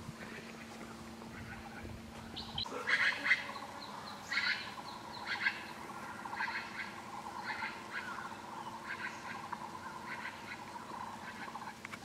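Taiwan Blue Magpie calling: from about three seconds in, a series of loud, harsh calls repeating roughly once a second. Before that, only faint calls over a low steady hum.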